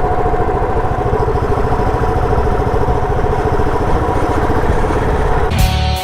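Royal Enfield Bullet 350's single-cylinder engine running steadily through its stock silencer, a rapid, even exhaust beat. Guitar-led music cuts in near the end.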